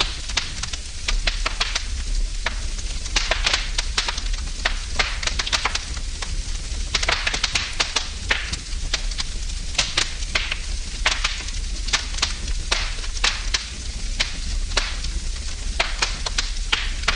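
Wood fire burning in a fireplace, crackling and popping irregularly over a steady hiss, with a low steady hum underneath.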